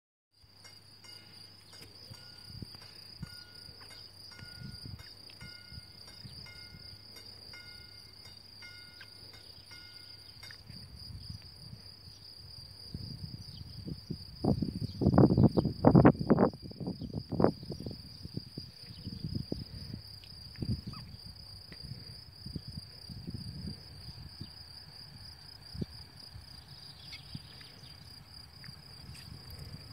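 Insects chirring in a steady, high, pulsing drone, with a low hum that stops about a third of the way in. Near the middle come a few seconds of loud, irregular low rumbling buffets.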